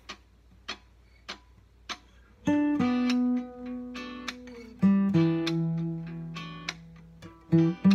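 Acoustic guitar: four light taps about half a second apart, then plucked chords that ring out and fade, a new chord about halfway through and a few quicker notes near the end.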